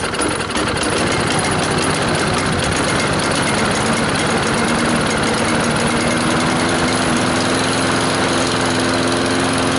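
Husqvarna 7021RD push mower's Kohler Courage engine running steadily, freshly started, coming up to speed about a second in.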